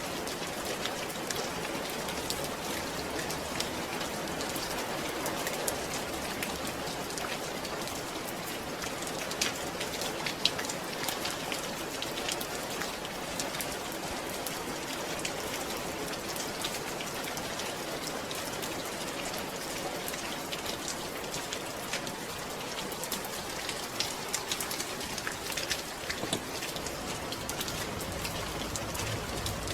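Steady rain falling, with many separate drop ticks on a surface scattered through a continuous hiss.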